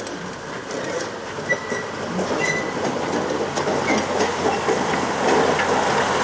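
Drewry 0-6-0 diesel shunter hauling a passenger carriage slowly past: the engine running, with wheels clicking over the rails. It grows louder as it draws level, and there are a couple of brief high squeaks in the first half.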